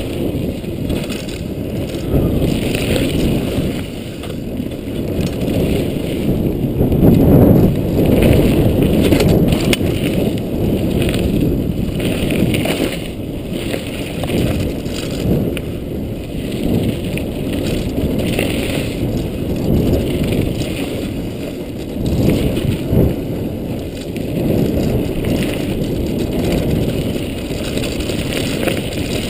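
Mountain bike riding down a dirt trail, heard from a chest-mounted GoPro: a steady rumble of wind buffeting and tyres on dirt, with knocks and rattles from the bike over bumps, loudest a few seconds in.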